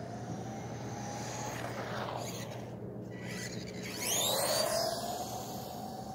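Electric whine of a Haiboxing 16889 RC truck's stock brushed 390 motor and drivetrain on 3S power, running flat out on asphalt. The whine glides in pitch and swells to its loudest about four seconds in, as the truck passes close.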